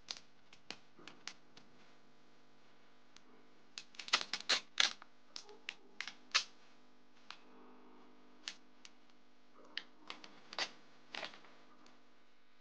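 Adhesive plastic film being peeled slowly off a laptop palm rest by gloved hands: irregular sharp crackles and clicks, bunched in a few short flurries.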